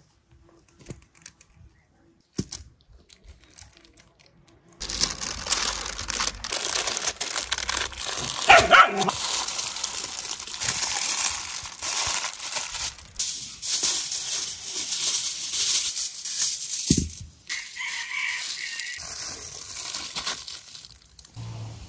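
Aluminium foil crinkling and crumpling as it is folded tightly around a whole stuffed chicken, starting about five seconds in and going on until near the end. A dog barks once about a third of the way through.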